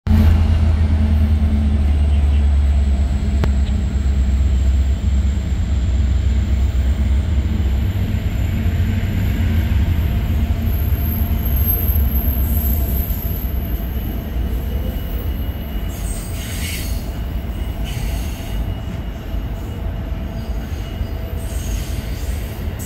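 Pacific Surfliner bilevel passenger cars rolling past as the train departs the station. A heavy low rumble eases after about eight seconds, with a faint high squeal from the wheels and short clicks of wheels over the rail joints later on.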